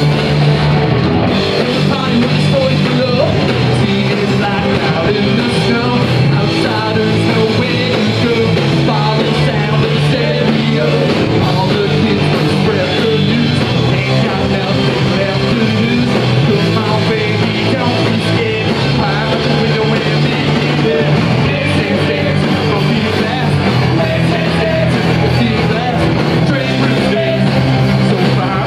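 Live punk rock band playing loud, with electric guitars and drums.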